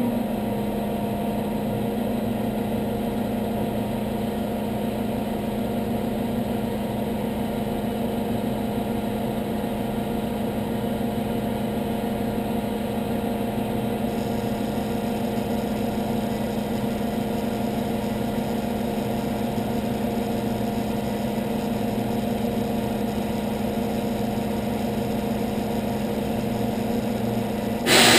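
Truck engine idling steadily at an even pitch. Right at the end, a sudden loud burst of noise cuts in.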